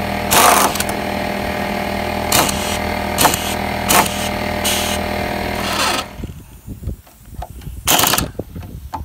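Campbell Hausfeld 1/2-inch pneumatic impact wrench running as it drives a bolt into a wooden playset beam, hammering under a steady run with several sharper bursts. It cuts off suddenly about six seconds in, then gives one more short burst near the end.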